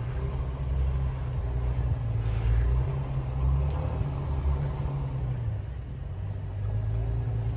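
Range Rover's V8 engine running low as the SUV drives slowly through deep snow on BFGoodrich KO2 all-terrain tyres, a steady low rumble that is loudest in the middle.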